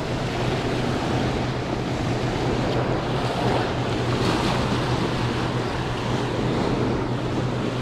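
Turbulent water boiling up from a hydroelectric dam's running turbine outflow: a steady rushing noise with a low, even hum underneath.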